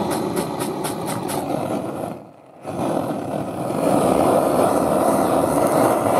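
Handheld gas torch burner running with a steady rushing flame noise while it singes a pig's hide to bubble off the outer skin layer. A few quick scrapes come in the first second or so, and the sound drops out briefly a little over two seconds in.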